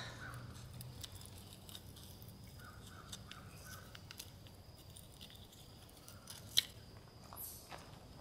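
Faint clicks and light scrapes of a bicycle handlebar reflector and its clamp being unscrewed and lifted off the bar, with one sharper click about six and a half seconds in.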